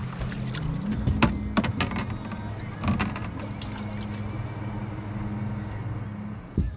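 A boat motor runs steadily at low speed, with a slight change in pitch about a second in. Several sharp clicks and knocks sound over it in the first few seconds.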